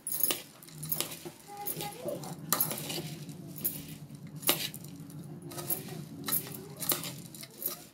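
Puffed-rice jhal muri mixture being stirred and tossed in a metal bowl: dry rustling with repeated sharp clinks against the bowl.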